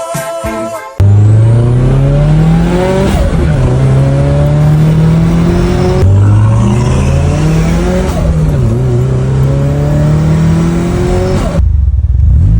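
A car engine accelerating hard, its pitch climbing and dropping back at each gear change, about four times in a row. Near the end it cuts to a loud, deep, low rumble. Music plays for about the first second.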